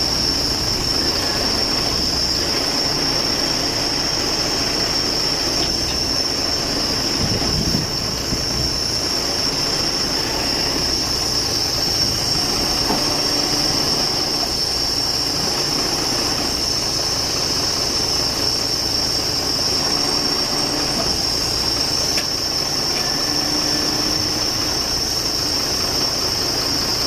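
Mercedes-Benz 1823 boom truck's diesel engine running steadily to work its Palfinger crane, a constant high-pitched whine over an even rumble.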